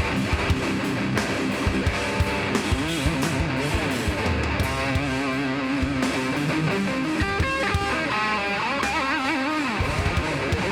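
A heavy hardcore/metal band playing live: distorted electric guitars over bass and drums, with bending, wavering lead-guitar notes in the second half.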